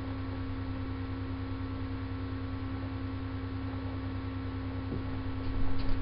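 Steady electrical hum over faint hiss, the kind a cheap webcam microphone picks up. Near the end, low dull thuds begin: footsteps on the wooden floor as someone walks up.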